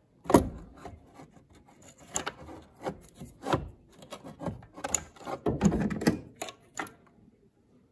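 A GM G-body blower motor being twisted and worked loose by hand from the heater case, its never-removed seal breaking: an irregular string of clicks, knocks and scraping rubs, the sharpest knock about a third of a second in.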